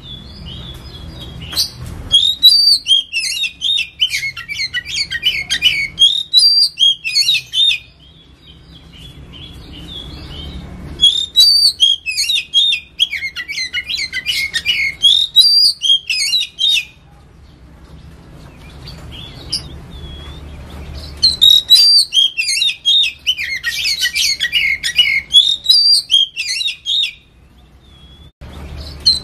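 Oriental magpie-robin (kacer) singing: three long bouts of loud, rapid, varied whistled phrases, each about five or six seconds, with softer scattered notes in the pauses between them and a low hum underneath.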